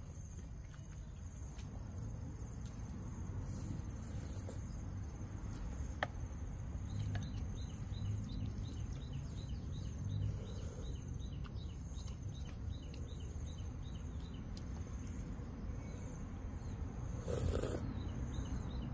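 Insects droning steadily on one high note over a low background rumble, with a run of short high chirps about a third of the way in and a few light clicks; a brief louder rustling sound comes near the end.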